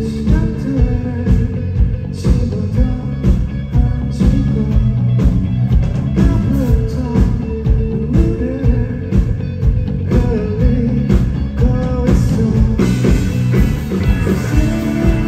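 Live rock band playing a song: electric bass, guitar and drums keeping a steady beat, with a voice singing over them. The cymbals and high end get fuller about thirteen seconds in.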